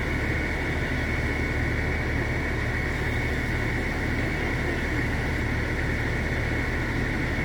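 Steady mechanical rumble with an even hiss, carried over a radio channel that has been keyed open with no one talking.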